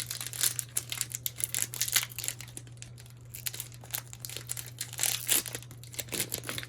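Foil wrapper of a Pokémon trading-card booster pack crinkling and tearing as it is opened by hand, in a run of irregular crackles.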